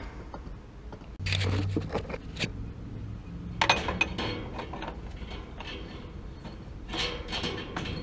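Hands handling metal gas fittings and a gas valve: rustling and scraping with a few light metallic clicks, in three short bouts.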